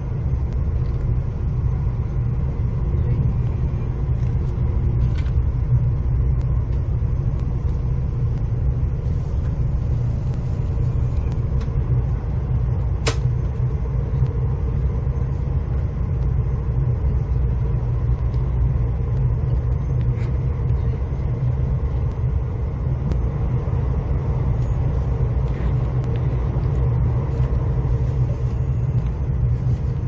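Steady low vehicle rumble, with a few faint clicks and one sharp click about thirteen seconds in.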